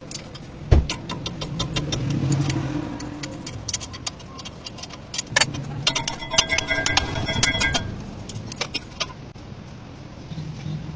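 Metal tools and parts clinking and knocking: a heavy thump about a second in, scattered sharp clicks, and a ringing metallic clatter a little past the middle. A low engine hum runs underneath.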